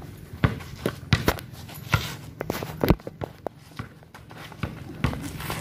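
Players running on a hard-packed outdoor court: an irregular scatter of footfalls, shoe scuffs and sharp knocks, about a dozen across the stretch.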